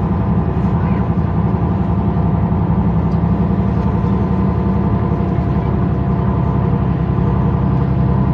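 MAN Lions City A20 EEV city bus's diesel engine idling steadily with the bus standing still. Its low hum drops slightly in pitch near the end.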